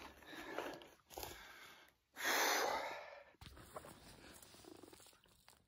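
A hiker breathing close to the microphone, with one long, loud exhale about two seconds in. The sound drops out briefly a few times.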